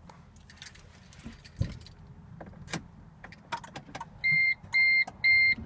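Car keys jangling and clicking as the key goes into and turns in the center-console ignition of a 2014 Smart Fortwo Electric Drive, with no motor sound from the electric drive as it switches on. About four seconds in, the dashboard chime starts beeping, even high beeps about two a second, louder than the key noise.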